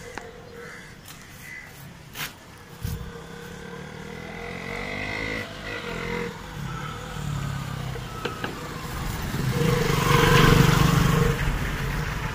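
Motorcycle engine running on the move, growing louder to a peak about ten seconds in. There are two sharp knocks between two and three seconds in.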